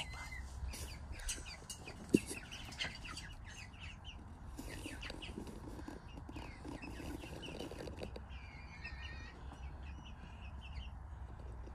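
A small flock of young hens clucking and cheeping softly in short, scattered calls, with a single sharp knock about two seconds in.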